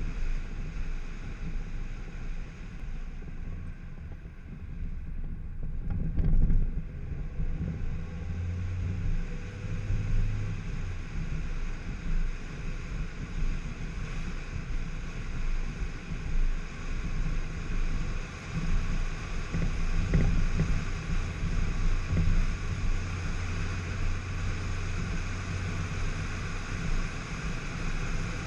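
A 2004 Volkswagen Jetta driving along a road, heard as a steady low engine and tyre rumble with wind noise on the microphone. There is a brief bump about six seconds in and again about twenty seconds in.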